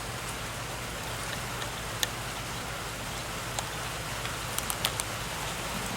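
Light rain starting to fall: a steady hiss of rain with scattered sharp drop ticks, a few of them close together near the end.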